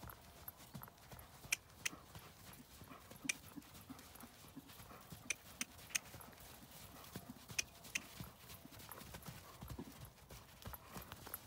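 Connemara pony's hooves beating on a sand arena at a steady trot while it is lunged, with a few sharp clicks scattered in among the hoofbeats.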